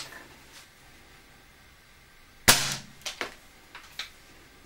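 A single shot from a .22 air rifle of UK legal-limit power: a sharp crack about two and a half seconds in as the pellet strikes the coconut's shell without penetrating it. A few lighter clicks follow.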